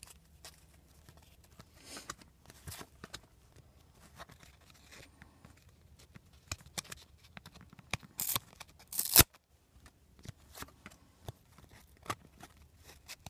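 Trading cards being handled and flipped through: short papery slides, flicks and snaps as the glossy cards rub and click against each other, with a couple of louder sharp snaps about eight and nine seconds in.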